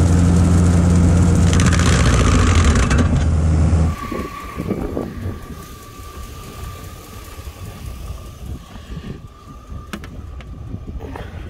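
Tractor-driven Seppi stone crusher running under load with a loud, steady low drone. About four seconds in it cuts off, leaving a much quieter background with a faint steady high whine.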